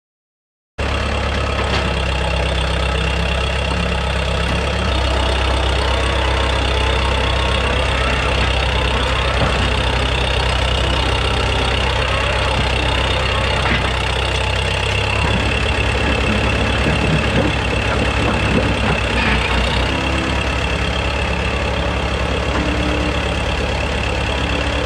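Backhoe engine running steadily, coming in suddenly about a second in, its note shifting slightly now and then.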